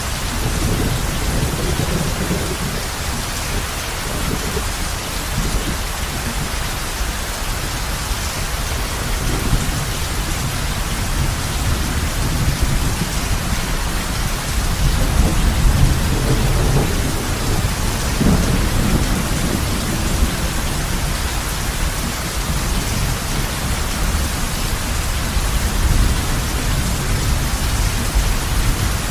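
Heavy rain falling steadily on a roof, with low rolling thunder that swells several times and is loudest about halfway through.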